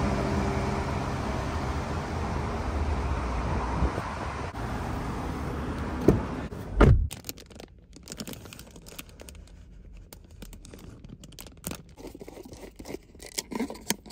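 Steady outdoor background noise, then two heavy thumps about six and seven seconds in. After that, quieter rustling of a plastic convenience-store bag and small clicks of a plastic coffee cup lid tab being pried back, inside a car.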